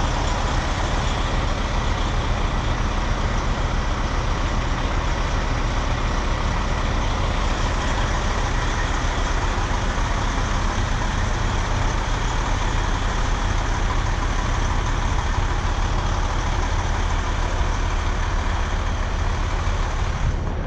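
Fire engine idling, a steady low engine drone with an even noise over it, unchanging throughout.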